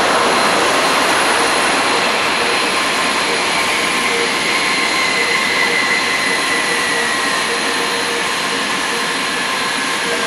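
Boeing 767-300's jet engines in reverse thrust during the landing rollout: a steady, rushing jet noise that slowly eases, with a faint whine falling in pitch through the middle.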